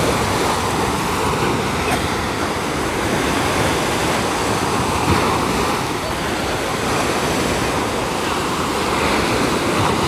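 Surf from the Sea of Azov washing onto a sandy beach, a steady rush of small waves that swells and eases every few seconds, with wind buffeting the microphone.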